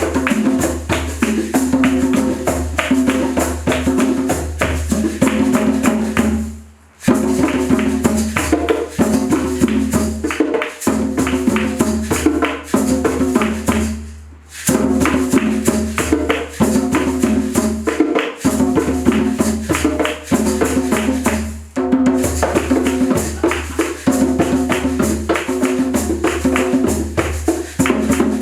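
Rhythmic instrumental music with shaken and struck percussion over a repeating low melodic figure.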